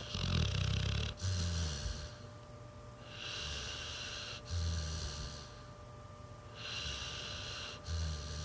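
Pit bull snoring in her sleep: three slow, even breaths, each a hissing breath sound followed by a short, low, rattling snore, about every three and a half seconds.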